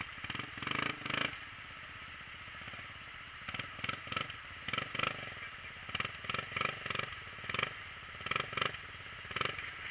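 Off-road side-by-side engine idling, with about a dozen irregular short bursts of clattering and scraping over it.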